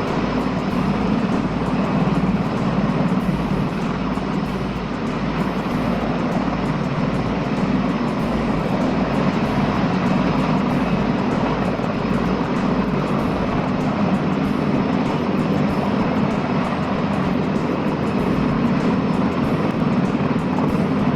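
Mi-26 heavy-lift helicopter hovering close by: a loud, steady rotor and turbine noise.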